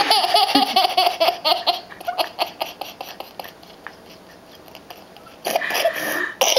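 A toddler laughing hard: a long run of high, pulsing giggles in the first two seconds that trails off into scattered short laughs, then another loud burst of laughter near the end.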